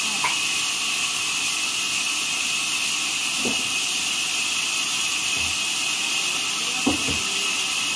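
Sawmill machinery running with a steady high hiss, with two knocks of wood as the cut log is shifted on the carriage, one about halfway through and a louder one near the end.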